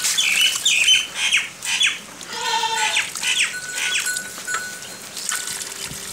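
Water poured from a plastic bucket splashing and trickling onto soil around a plant's base, with birds chirping in quick bursts throughout. A short animal call comes about two and a half seconds in.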